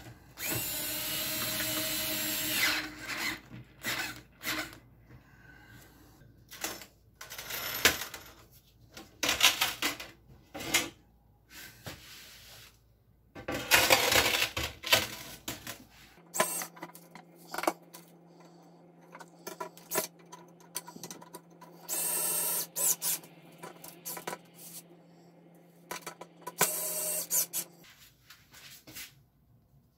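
Cordless screwdriver running in short bursts, the first lasting about two seconds, as it drives screws into the metal frame of an oven door, with clicks and knocks of handling the door and tool between the bursts.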